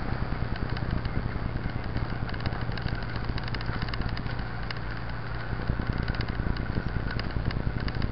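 Mountain bike riding along a rough, wet dirt road: a steady low wind rumble on the microphone, with rapid small clicks and rattles from the bike and mount over the bumpy surface.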